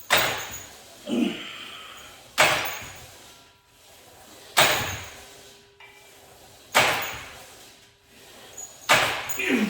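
Cable machine weight stack of about 120 pounds clanking down at the end of each cable crunch rep, a sharp metallic knock about every two seconds, five times.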